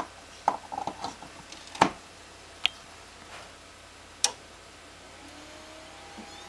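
Samsung HLT6156W DLP rear-projection television making several sharp clicks and ticks, then, about five seconds in, a faint whine that rises steadily in pitch: the whining noise this set is known for.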